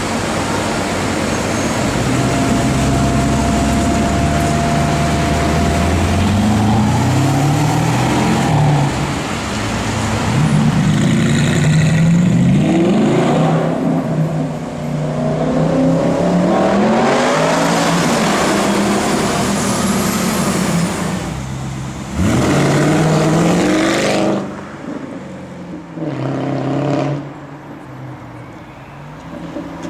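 Supercar engines revving and accelerating: the pitch climbs, drops at each gear change and climbs again, several times over. The sound changes abruptly a few times in the second half, as one car gives way to another.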